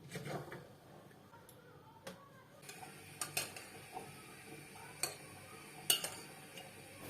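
A handful of light, sharp clicks and taps from small household objects being handled, spaced a second or so apart over a faint room background.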